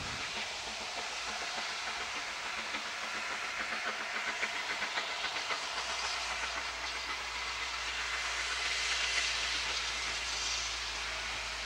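Narrow-gauge steam train working past: a steady hiss of steam with a fast, even beat, growing to its loudest about nine seconds in and easing off near the end.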